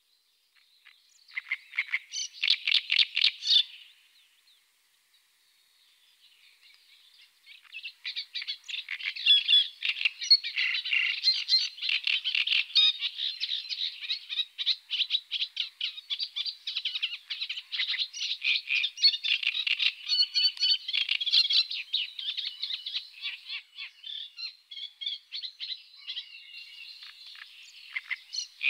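Great reed warbler singing: a short burst of rapid repeated notes about a second in, then, after a pause of a few seconds, a long, nearly unbroken run of song.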